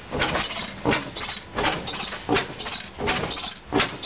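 A slow-running stationary gas engine firing at an even beat, each stroke a sharp pop from its flaming exhaust, about three pops every two seconds.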